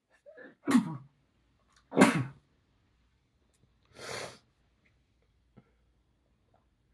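A man sneezing twice, about a second apart, the second sneeze the loudest, set off by chhinkni sneezing powder; a short intake of breath comes before them and a softer breathy sound follows about two seconds later.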